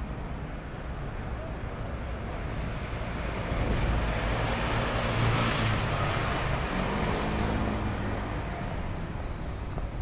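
Road traffic, with a vehicle passing close that swells to its loudest about halfway through and then fades away.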